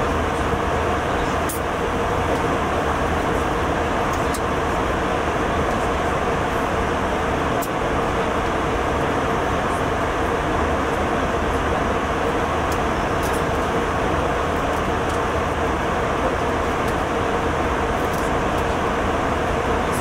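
Steady cabin noise of a jet airliner in cruise: an even rush of air and engine noise with a faint steady hum running through it.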